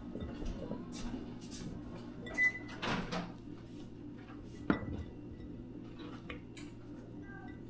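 Kitchen handling sounds as cucumber pieces are packed into a jar: scattered knocks and light clinks, with a sharp knock a little past halfway, over a low steady hum.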